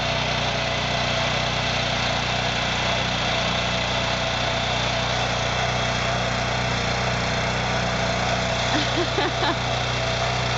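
BCS 853 two-wheel walking tractor's engine running steadily under load as it drives a Berta rotary plow through the soil.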